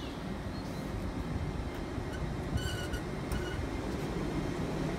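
LNER Class 801 Azuma electric multiple unit moving slowly past at low speed, a steady low rumble of wheels and running gear. Two short high-pitched squeaks come about halfway through.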